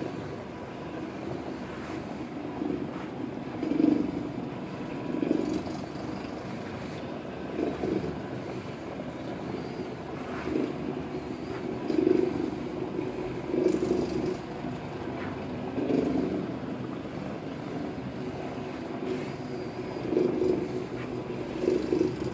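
Electric carpet-cleaning floor machine running steadily as it is pushed over carpet, its motor hum swelling and easing every one to two seconds.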